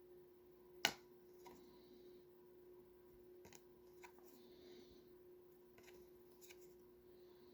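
Pokémon trading cards being handled and flipped through: soft rustles and light clicks, with one sharper click about a second in, over a faint steady hum.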